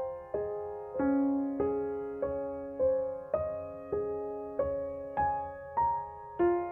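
Background piano music: a slow, gentle melody of single notes about every half second, each ringing and fading, over a held low note.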